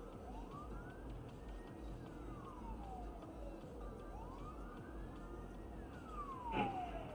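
Ambulance siren wailing, its pitch sliding slowly up and back down about every four seconds. A brief, louder burst of sound breaks in near the end.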